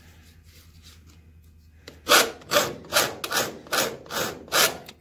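Hand file rasping across the edge of a sheet-metal blank in about seven strokes, roughly two a second, starting about two seconds in. The edge is being filed back to the scribed line.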